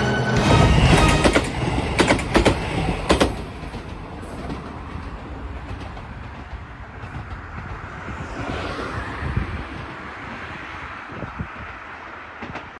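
Diesel railcar passing close, its wheels clacking sharply over rail joints several times in the first three seconds. Then a quieter stretch of outdoor road noise, with a vehicle passing about eight to nine seconds in.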